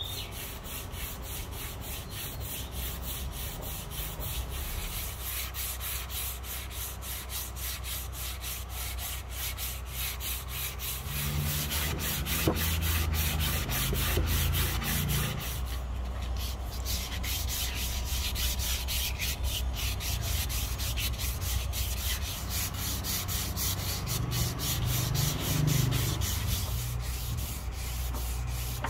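Hand sanding of a Siamese rosewood walking stick: sandpaper rubbing back and forth along the wooden shaft in quick, continuous strokes, a little louder in the second half.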